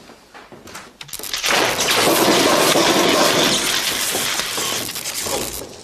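Glass smashing: a sudden loud crash of shattering glass about a second in, with the noise of breaking and falling glass going on for several seconds before it stops.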